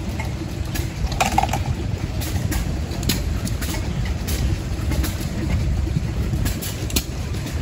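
Large antique flywheel stationary gas engine running, a steady low rumble broken by sharp exhaust beats about every half second, not evenly spaced.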